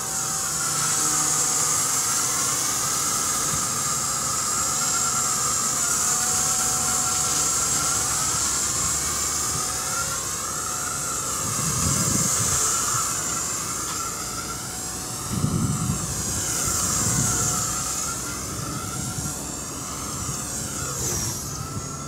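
Walkera V120D02S mini electric RC helicopter in flight: a high motor and rotor whine whose pitch rises and falls as it manoeuvres. Gusty wind rumbles on the microphone at times, strongest around the middle.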